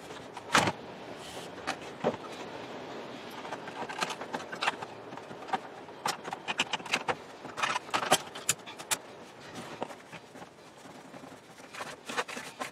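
Scattered plastic clicks, taps and rattles from hands fitting the blower switch and HVAC control panel back into a GMT-800 Tahoe's dashboard, over a steady faint hiss.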